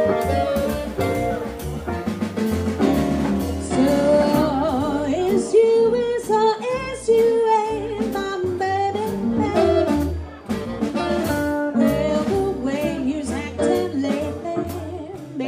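Live jazz combo playing: a wavering lead melody over walking bass and piano, with drums keeping a steady cymbal beat.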